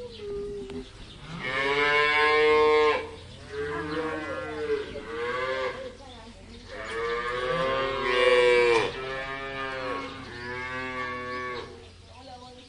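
Cattle mooing repeatedly: about five long, drawn-out moos, the loudest about two seconds in and about eight seconds in.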